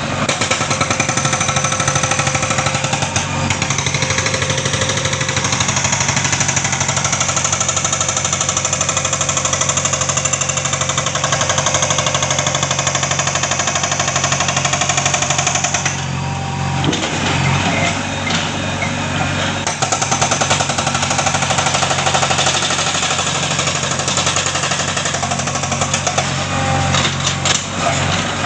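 Hydraulic breaker hammer on a JCB backhoe excavator pounding rock in rapid, steady strokes, with the machine's engine running underneath. The hammering briefly lets up about sixteen seconds in, then resumes.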